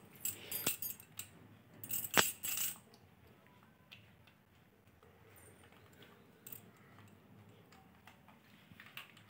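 Light metal chain clinking and rattling as a young monkey handles the chain on its collar: two quick bursts of jingling clinks in the first three seconds, then a few single clinks.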